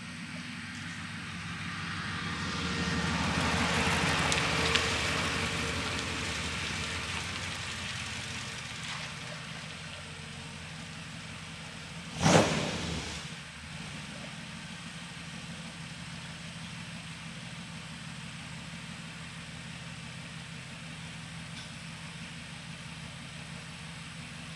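1937 Ford race car's engine running. It swells louder over the first few seconds and then fades away, with one short, sharp, loud burst about halfway through, then settles to a steady run.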